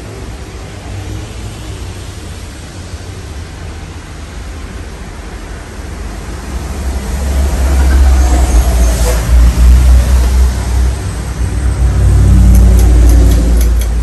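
44-inch Hunter Dominion ceiling fan running, heard as a low rumble that swells about seven seconds in and stays loud, with a few light clicks near the end.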